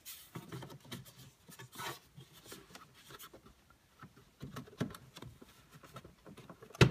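Hands working the plastic instrument-cluster bezel loose from a 2003–2004 Mustang SVT Cobra dashboard: scattered small clicks, scrapes and rubbing of plastic trim, with a louder snap near the end.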